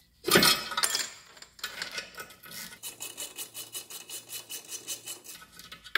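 Hand ratchet clicking steadily, about five clicks a second, as it runs in a bolt fastening the new lower ball joint to the control arm. A louder metal clatter from the socket and tool handling comes near the start.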